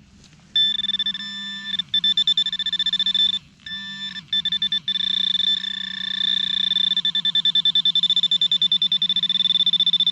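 Metal detecting equipment giving its electronic target tone over a buried piece of metal: a buzzy, warbling beep that pulses rapidly, cutting out briefly a few times in the first half and then holding steady.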